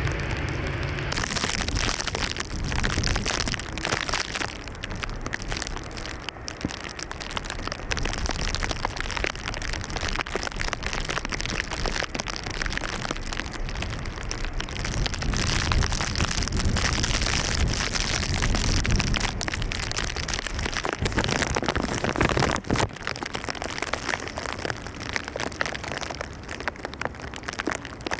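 Jet airliner engine noise: a steady roar with crackling through it, over a fluctuating low rumble.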